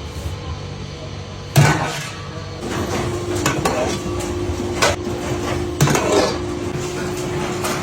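Sharp clanks and knocks of hard objects being handled or struck in a soap factory. The loudest comes about one and a half seconds in, and three or four more follow. A steady machine hum starts partway through.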